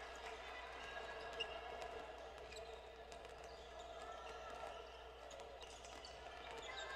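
Faint sounds of a basketball game in a gym: scattered ball bounces and players' distant voices over the hall's steady background noise, with one sharper knock about a second and a half in.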